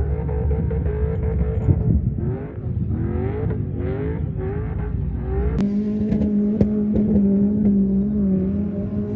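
Car engine revving in several rising surges, then, after a sudden change about five and a half seconds in, holding a steady high note with scattered clicks and knocks.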